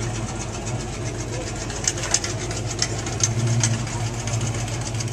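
An engine idling with a steady low hum, with irregular light clicks over it.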